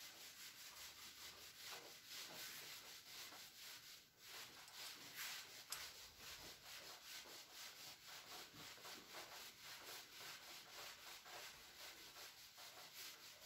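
Whiteboard eraser wiping across a whiteboard in quick, repeated back-and-forth strokes: a faint, rhythmic rubbing hiss, with a short pause about four seconds in.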